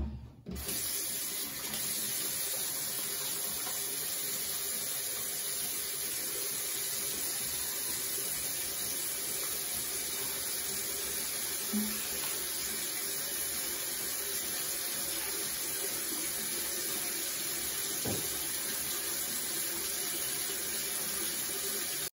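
Bathroom sink tap running in a steady stream, just after a sharp knock at the start.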